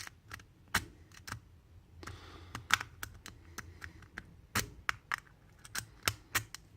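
A W rake scraping in and out of a Delta discus padlock's keyway under heavy tension, its pins clicking in quick, irregular ticks.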